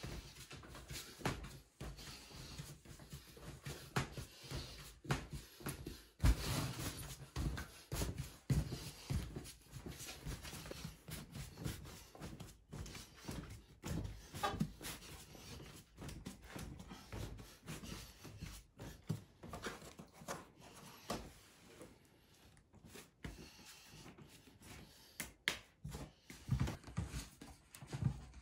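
Hands punching and pressing down a large mass of risen bread dough on a wooden table: irregular soft slaps and thumps.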